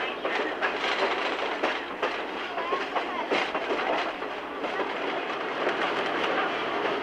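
Open passenger car riding on logging-railroad track behind Shay #5, a geared steam locomotive: a steady rolling clatter with frequent clanks and jolts.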